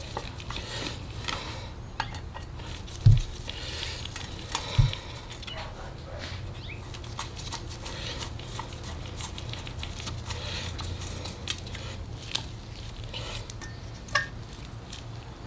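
Screwdriver working small slotted steel screws into an airbrush compressor's aluminium head cover: light metallic clicks and scrapes, with two dull thumps about three and five seconds in.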